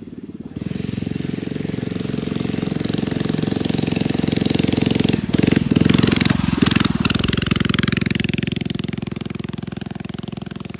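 Small single-cylinder mini bike engine running hard with a rapid pulsing exhaust. It comes in sharply about half a second in, gets loudest around the middle and then fades somewhat as the bike moves off.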